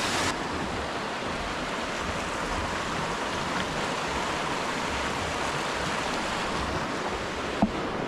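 A small waterfall, its falling water making a steady rushing wash, with a faint click near the end.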